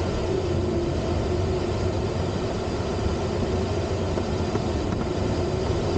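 Steady rush of airflow around a Duo Discus glider's cockpit in flight, with a low rumbling buffet.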